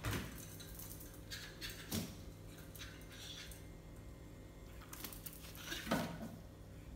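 Faint, scattered taps and scuffles of a baby monkey and a toy poodle playing on a tile floor, the most noticeable cluster near the end, over a steady low hum.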